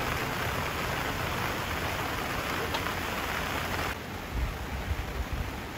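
Steady rain falling on a camping tarp, an even hiss. About four seconds in it drops to a quieter rain sound with a few soft low thumps.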